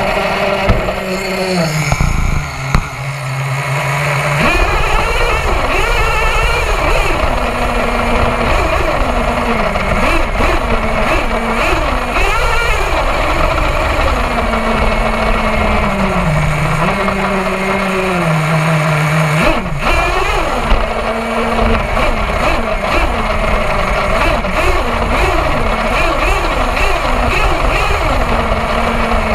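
HPI Savage XL RC monster truck's small glow-fuel nitro engine running and revving up and down as it drives, heard from a camera mounted on the truck, with rumble from the rough ground. The throttle drops off briefly about two seconds in and again about two-thirds of the way through.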